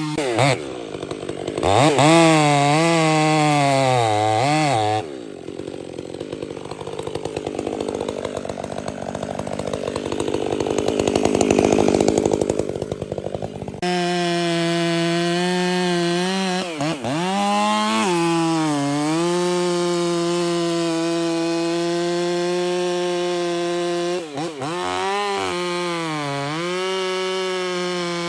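Two-stroke chainsaw running at high revs while cutting a red oak trunk, its pitch dipping and recovering again and again as the chain loads up in the cut. About five seconds in, its clear note gives way to a rougher, noisier sound for around nine seconds before the saw's note returns.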